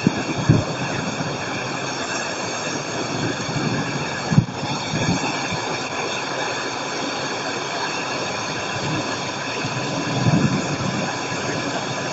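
Thunderstorm at night: a steady rushing of wind on the microphone, with low rumbles. There are two short thumps, about half a second in and about four and a half seconds in, and a longer rumbling swell around ten seconds in.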